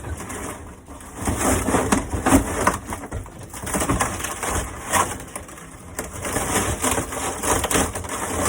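Old RV ceiling boards being pulled down: repeated crunching and cracking of wood and board, coming in uneven swells.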